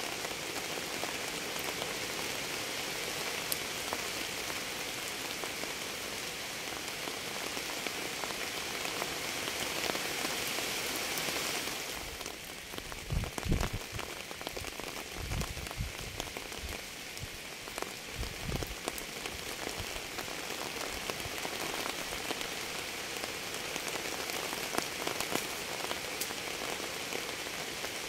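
Steady rain falling on a surface, an even hiss with scattered drop ticks. About halfway through, the hiss thins and a few low thumps come over several seconds.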